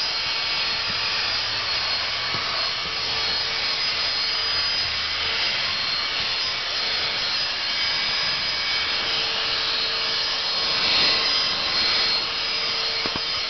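Dyson DC16 Animal cordless handheld vacuum cleaner running steadily: a rush of air with a steady high whine from the motor as the nozzle works over a rubber car floor mat.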